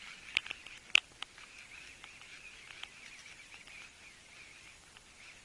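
Fishing reel being cranked against a hooked fish: a faint, wavering squeaky whirr, with a few sharp clicks in the first second and a half.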